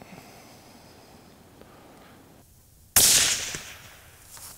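A single shot from a scoped deer rifle fitted with a sound moderator, about three seconds in after a quiet stretch. It comes in suddenly and dies away over about a second.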